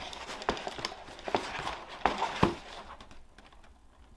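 Tissue paper rustling in a cardboard shoebox, with several light knocks of the box being handled, dying away after about three seconds.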